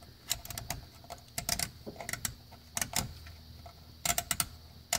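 Plastic radiator drain petcock being twisted shut by hand, giving irregular clusters of sharp clicks as it turns, the drain being closed after the coolant has run out.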